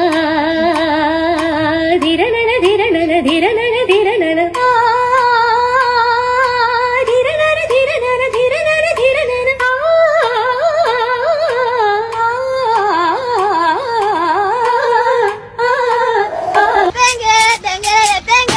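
A high female voice singing a long, wavering melody with strong vibrato, voicing a cartoon mosquito, with a quick count of "one, two, three, four" a few seconds in. Near the end the singing gives way to a run of short sharp clicks.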